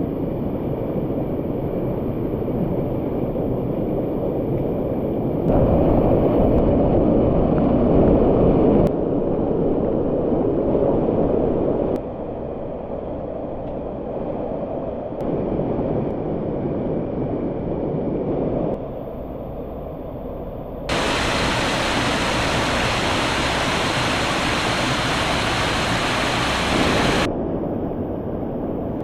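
Fast-flowing water rushing steadily, a dense roar of noise that jumps abruptly in loudness and tone several times, hissiest and loudest in the stretch before the end.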